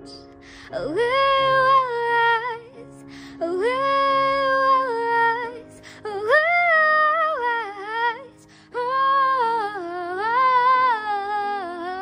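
A woman singing solo in long held notes with vibrato, in four phrases with short breaths between them, over a quiet sustained instrumental backing.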